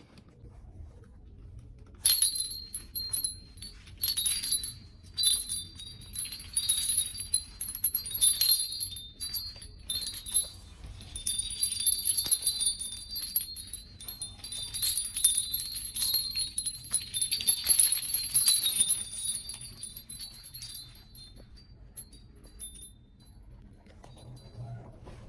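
Small metal bells of a handmade hanging doorbell jingling in repeated irregular shakes, starting about two seconds in and dying away near the end.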